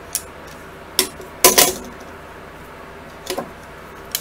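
Metal clicks and clinks as digital calipers and the motor's steel rotor shaft and bearing are handled and knocked together: a few separate taps, the loudest double clink about a second and a half in.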